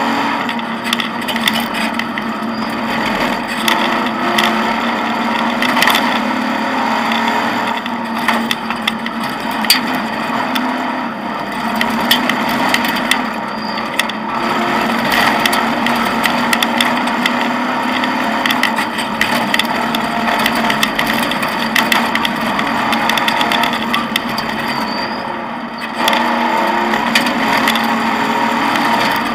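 Off-road rally car heard from inside the cockpit while driven along a rough dirt track: the engine runs steadily under load amid constant rattling, clatter and knocks from the car on the rough ground. The engine sound drops briefly about 25 seconds in, then picks up again.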